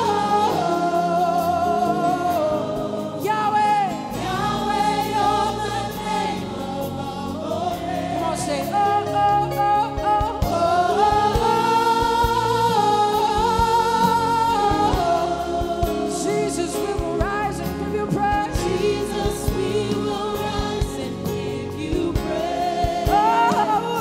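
Live gospel worship song: a woman's lead voice on a microphone singing long, wavering "oh" phrases, with a congregation singing along over keyboard accompaniment.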